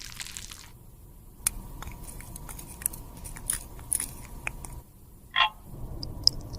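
Scattered small, sharp clicks and taps of lipstick-repair tools and cosmetic containers being handled, with one short, louder sound about five and a half seconds in.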